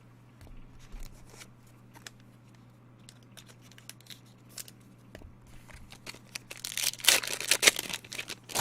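Trading cards handled with faint clicks and rustles, then near the end a loud crinkling tear as a card pack wrapper is ripped open.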